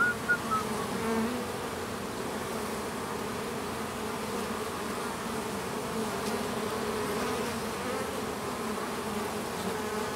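A swarm of honeybees buzzing steadily as they fly over and crawl on wet rocks collecting water. The hum wavers, with a few brief louder swells in the first second as bees pass close by.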